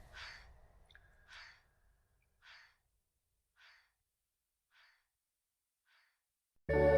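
A short breathy whoosh, like a sigh, repeated about once a second and fainter each time, as in a fading echo effect. Loud music cuts in suddenly near the end.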